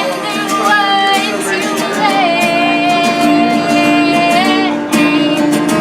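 Music: a voice singing over an acoustic guitar, holding one long note through the middle.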